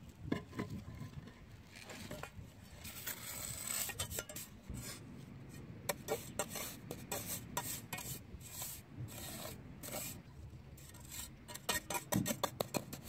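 Steel trowel scraping and smoothing a bed of sand in many short, repeated strokes, levelling the bedding sand under a concrete paver.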